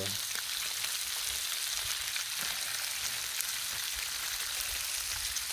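Bacon strips frying on a Blackstone flat-top griddle: a steady sizzling hiss with a few faint pops.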